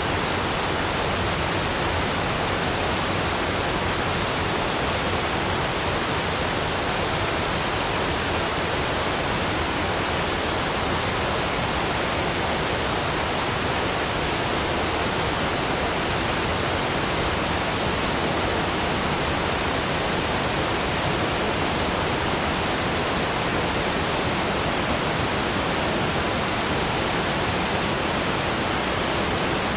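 Steady, unbroken rushing noise spread evenly from low to high pitch, with no changes or separate events.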